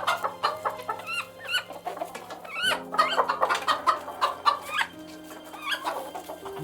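Chickens clucking and calling, a quick run of many short, bending calls, over soft sustained piano music.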